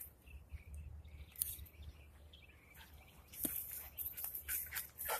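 Footsteps and dogs' paws rustling and crunching over dry, patchy grass: a scatter of soft crackles that grows busier a little past halfway, over a low rumble on the microphone.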